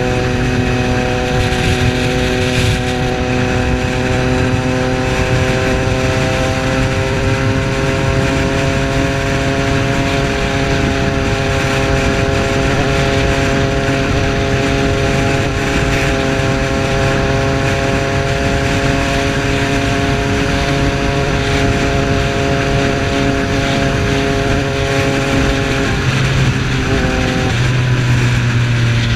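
Triumph Street Triple's 675 cc inline-three engine running at steady revs while riding, its note holding nearly constant over a steady rush of noise. The revs drop near the end.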